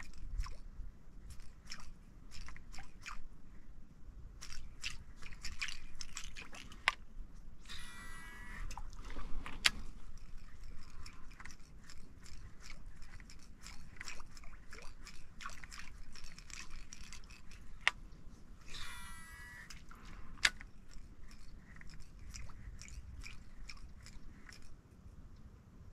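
Fishing reel and rod being worked to twitch a topwater lure: irregular dry clicks and ticks, with two stretches of about two seconds of wavering reel whir, one about a third of the way in and one about two-thirds in.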